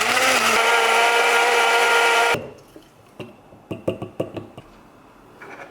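A small electric appliance motor running at high speed for about two and a half seconds, rising in pitch as it spins up, then cutting off abruptly. Several light clicks and knocks follow.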